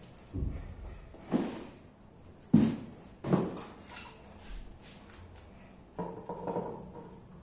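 Plastic knocks and clunks from handling a Samsung SF350 monitor and fitting its stand neck into the mount on the back. There are several separate thumps, the loudest about two and a half seconds in, then a short run of clicks near the end.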